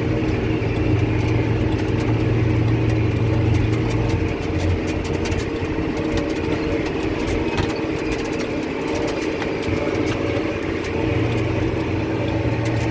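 John Deere tractor engine running steadily while pulling a Krone 1290 large square baler through the field. The low drone eases for several seconds in the middle and then comes back, with scattered clicks and rattles from the rig throughout.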